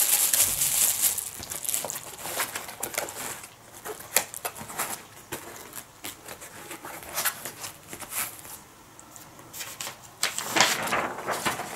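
Plastic bag of dates crinkling as it is pushed into a cardboard box, then scattered light clicks and taps as the box is closed and handled, with a louder patch of rustling near the end.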